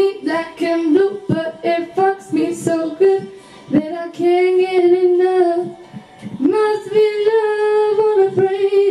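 A young woman singing into a handheld microphone: short phrases at first, then two long held notes in the second half.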